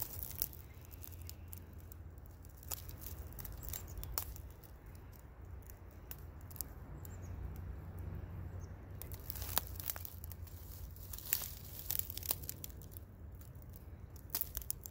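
Handling noise close to the microphone: scattered crackles and clicks over a low steady rumble.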